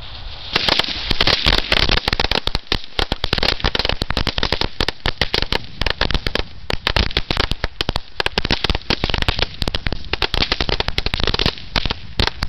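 A string of firecrackers going off in rapid, irregular pops that start about half a second in and keep going without a break.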